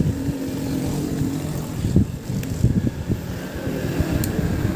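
A low, uneven engine rumble with a steady hum during the first second.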